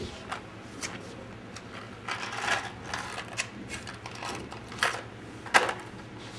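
A small plastic Certs mint box being handled and pushed open: an irregular string of sharp clicks and rattles, a quick clatter about two seconds in, and the two loudest clicks near the end.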